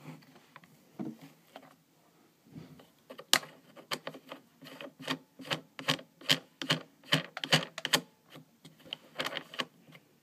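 Irregular plastic clicks and taps as a part is fitted to the top rail of an airsoft M16 by hand, its mounting knob being turned. The clicks are sparse at first, then come in a quick run of two or three a second for several seconds.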